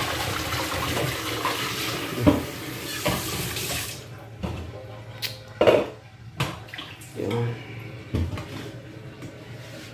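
Kitchen tap running into a metal pot in a stainless-steel sink; the flow stops about four seconds in. Several separate knocks follow as the pot is handled in the sink.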